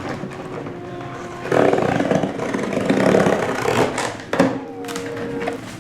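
Cardboard box and packing being handled as a computer case is unboxed: a loud rustling scrape for about three seconds, with a couple of knocks near the end.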